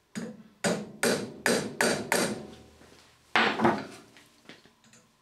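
Club hammer tapping a steel screw extractor into a broken bolt sheared in an aluminium housing: six quick metallic blows, then two more after a short pause.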